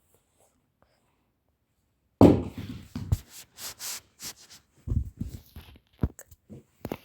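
Handling noises close to the microphone: a sudden loud thump about two seconds in, then a run of shorter knocks and rustles.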